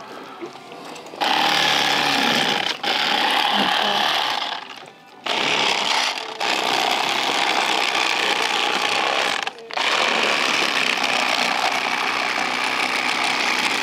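Electric fillet knife running in long buzzing stretches as it cuts through whole crappie, stopping briefly a few times between cuts. It starts about a second in.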